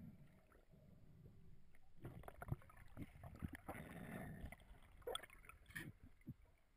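Faint, muffled underwater sound around a freediver holding a speargun: low water noise with scattered clicks and knocks, most of them between about two and six seconds in.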